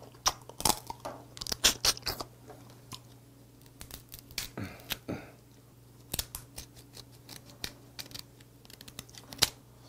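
Red snow crab shell being cracked and snapped apart by hand, giving a scatter of sharp cracks and clicks, with chewing of the crab meat. Near the end, kitchen scissors snip through the hard leg shell.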